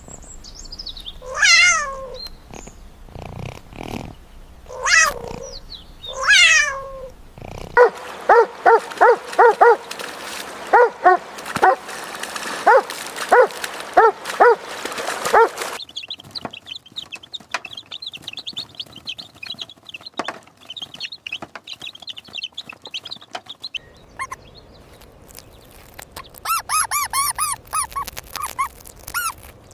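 A run of animal calls: three long falling cat meows, then a quick series of short dog barks, then rapid high chirping, and near the end more high-pitched calls.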